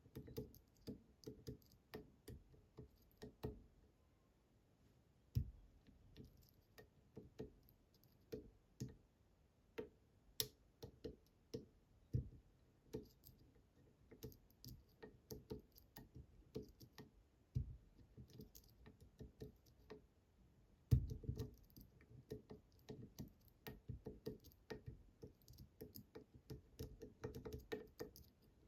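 Small, irregular clicks and ticks from a pick pushing down the tapered, spring-loaded pins of a Bramah-style pump lock under tension, often one or two a second with short pauses, as the pins are pushed over and over again.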